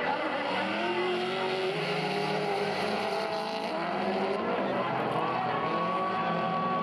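Drift cars sliding sideways in tandem, engines held at high revs with the pitch rising and falling as the drivers work the throttle, over the rush of spinning tyres.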